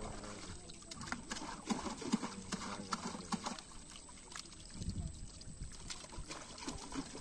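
Small fish flapping and splashing in shallow water held in a net while hands sort through them: irregular wet slaps and clicks over trickling water.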